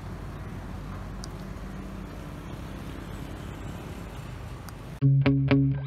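Steady road noise and low engine hum from a moving vehicle. Near the end, loud distorted electric-guitar rock music cuts in suddenly.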